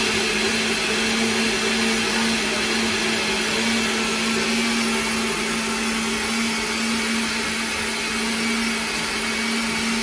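Countertop blender running steadily on its puree setting, churning boiled beans and carrots in water, with an even motor hum that holds one pitch.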